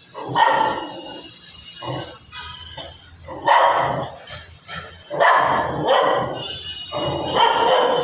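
A dog barking repeatedly, about six loud barks spaced unevenly.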